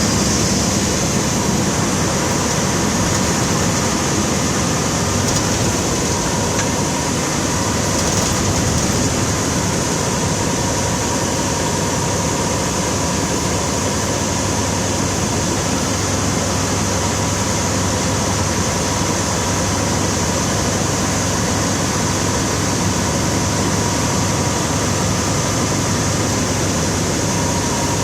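Vehicle engine running steadily with a constant fan-like hiss and low hum, with no rise or fall of a vehicle going past.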